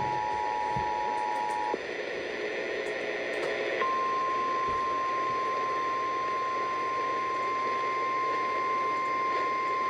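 Emergency alert tones over radio hiss: the EAS two-tone attention signal, two steady tones sounding together, cuts off about two seconds in. After a short stretch of lower tones, a single steady NOAA Weather Radio 1050 Hz warning alarm tone starts and holds to the end, heralding a tornado warning.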